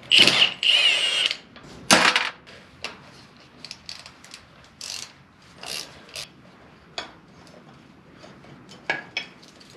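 Powered ratchet whirring for about a second as it spins a bolt off an engine bracket, then a sharp clank about two seconds in and scattered softer clicks and clinks of the tool and metal parts.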